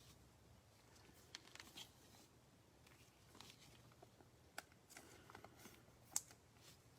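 Faint, scattered rustles and light clicks of trading cards and a foil pack wrapper being handled, with the sharpest click a little past six seconds in.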